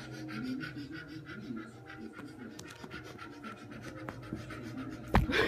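A cat on carpet makes a quick, steady run of rasping, scratching strokes. A loud thump comes near the end.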